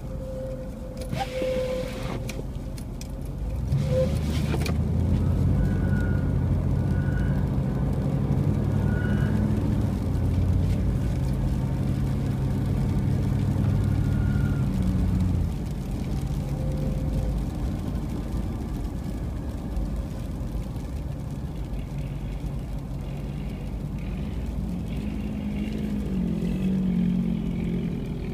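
Car driving on the road: engine and road noise, louder for about ten seconds as the engine pulls harder, then easing off.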